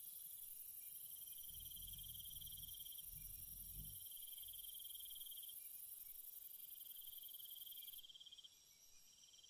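Faint night ambience of crickets chirping in long trills a few seconds each with short breaks, over a steady high insect hiss that drops away about eight seconds in.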